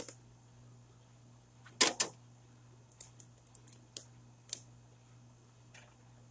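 Ratchet strap being worked around a lawnmower seat: sharp plastic-and-metal clicks, the loudest pair about two seconds in, then a run of lighter irregular clicks.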